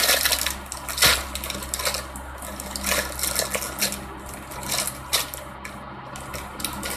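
Crinkling of a clear plastic bag as a packaged squishy toy is gripped and turned in the hands: irregular crackles, the loudest about a second in, over a steady low background hum.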